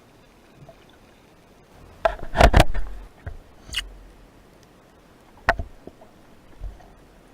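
Sharp knocks and clicks heard underwater: a tight, loud cluster about two seconds in, then a few single clicks spaced out over the next few seconds, against a faint steady hiss.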